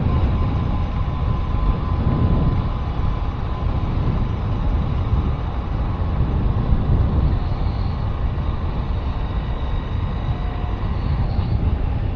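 A vehicle running steadily along a road, a constant low rumble of engine and road noise with wind on the microphone.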